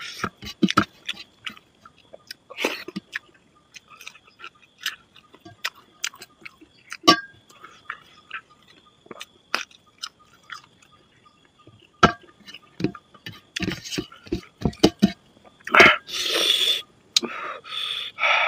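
Close-up mouth sounds of a man eating rice and chicken curry by hand: chewing with many short clicks, then a few loud slurps near the end as he drinks gravy from a steel bowl.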